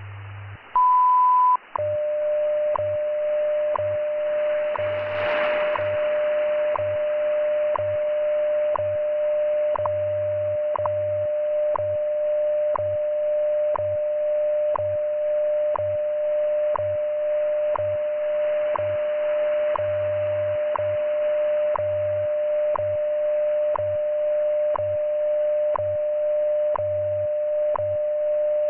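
WWV shortwave time signal received on 20 MHz: a brief 1000 Hz minute-marker beep just under a second long, then a steady 600 Hz tone with a short tick each second, over shortwave hiss and the pulsing 100 Hz time-code buzz underneath. A burst of static about five seconds in.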